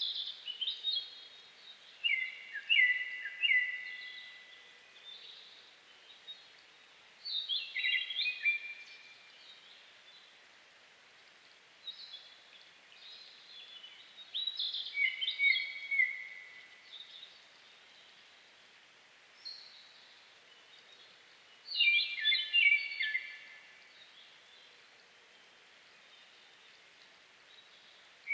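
A songbird in a forest sings short phrases of several clear whistled notes, each phrase lasting a second or two, with pauses of several seconds between them. Some phrases are loud and some faint.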